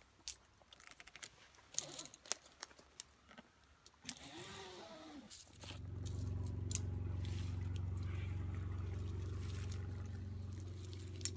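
Metal climbing hardware and rope clicking and rustling as a lanyard adjuster is worked by hand. About halfway in, a steady engine hum starts and becomes the loudest sound.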